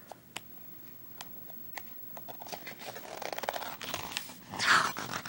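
Paper pages of a large art book being handled and turned: a few light ticks, then rustling that builds to a loud swish of a page turning near the end.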